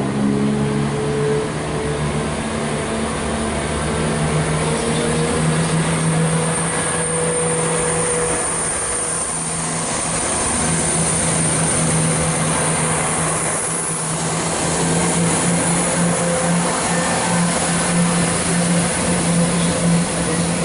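Chiltern Railways Class 168 Clubman diesel multiple unit running past along the platform and away. Its underfloor diesel engines run with a steady low hum, and a higher engine tone rises slightly in pitch over the first few seconds.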